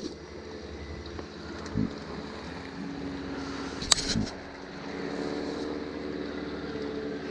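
Boat motor running steadily, its hum growing stronger about two and a half seconds in and again near the middle. A couple of dull knocks come in the boat, one near the start and a click-and-knock near the middle.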